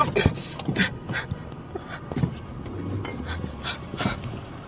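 A person panting heavily in quick, short gasps, about two a second, some of them half-voiced.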